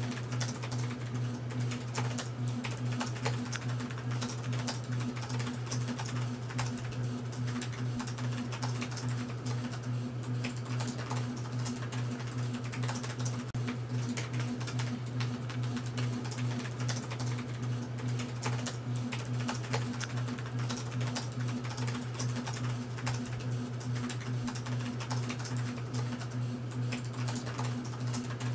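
Continuous rapid typing, a dense run of irregular key clicks, over a low steady drone.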